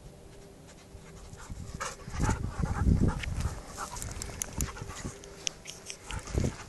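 A husky panting close by after a run, with quick breaths starting about two seconds in.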